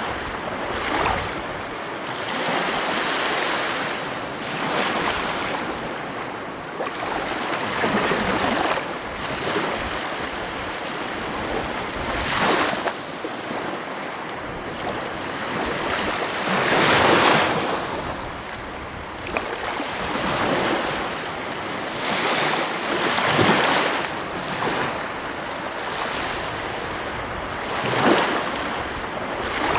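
Heavy ocean waves breaking on the coast: a continuous wash of surf that swells up and falls back every few seconds, with the loudest breakers about 17 and 28 seconds in. Wind buffets the microphone.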